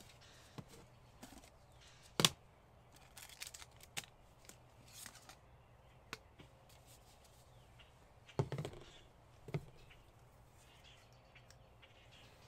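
Scattered faint clicks, knocks and rustles of small items being handled and set down on a plastic cooler lid: a water bottle, a cup and a coffee packet. The sharpest knock comes about two seconds in, with a few more around eight and a half and nine and a half seconds.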